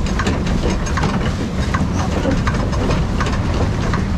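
Pedal swan boat being pedalled hard: a steady low rumble from the pedal drive and churning water, with a regular click about twice a second from the pedalling mechanism.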